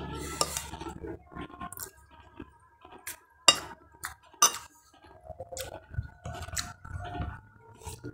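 Cutlery clinking and scraping against a plate during a meal: a run of sharp, separate clinks, the loudest about three and a half seconds in.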